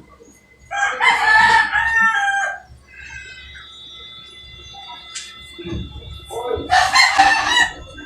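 A rooster crowing twice: a long crow of about two seconds near the start and a shorter one about seven seconds in.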